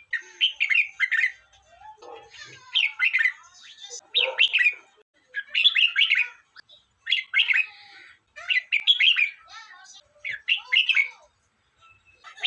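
Red-whiskered bulbul singing: about seven short, bright warbled phrases, each under a second long, repeated every second or two.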